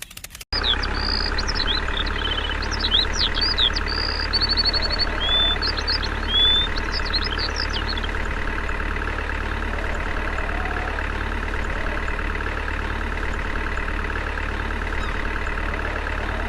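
Tractor engine idling steadily, starting abruptly just after a brief rapid ticking. Birds chirp and whistle over it for the first several seconds.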